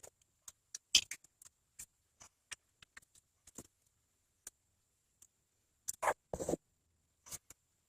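Faint, irregular small clicks and taps of a nut and hand tool as the factory terminal nut is fitted onto the starter motor's electrical terminal, with a couple of slightly louder scrapes about six seconds in.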